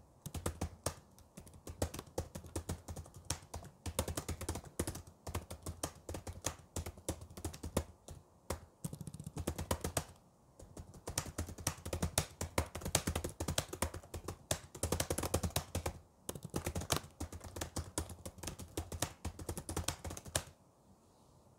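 Fast typing on a computer keyboard: a rapid, continuous run of key clicks with a couple of short pauses, stopping near the end.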